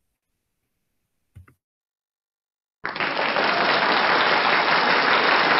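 Near silence with a faint click about a second and a half in, then applause that starts abruptly a little under three seconds in and continues steadily.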